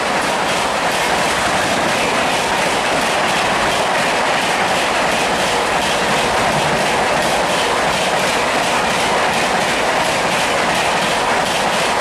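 Coaches of the Rajdhani Express passing at speed close by: a loud, steady rush of wheels on rail with a fast, even clickety-clack.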